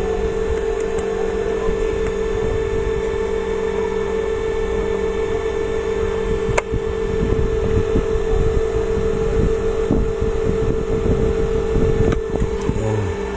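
A steady electrical or mechanical hum with a strong single tone. There is one sharp click about six and a half seconds in, followed by uneven low rumbling.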